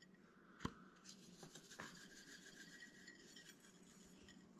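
Near silence: room tone with a faint steady hum, broken by one light tap about two-thirds of a second in and a fainter tick just before the two-second mark.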